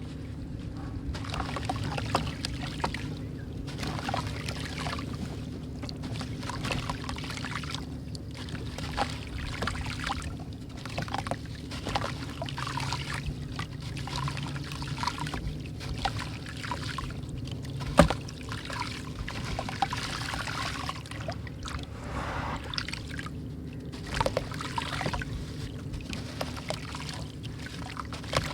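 Bricks crumbling in water: a steady run of small crackles and trickling over a low steady hum, with one sharp click about 18 seconds in.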